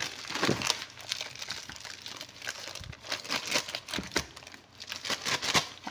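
Thin clear plastic bag crinkling and rustling in irregular crackles as it is handled around a ball of pizza dough.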